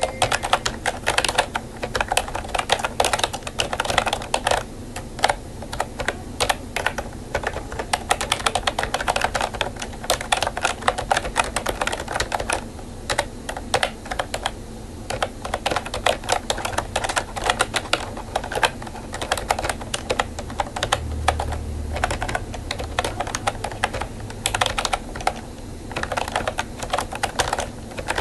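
Rapid, continuous typing on a miffy×Mipow wireless keyboard: quick clicking keystrokes with only brief pauses.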